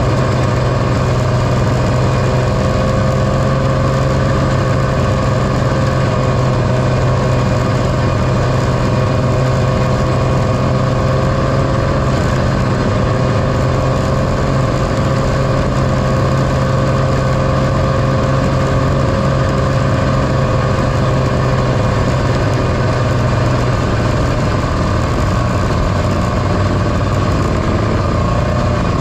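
Two-stroke engine of a 1978 John Deere Liquifire snowmobile running at a steady cruising speed, heard from on board the moving sled.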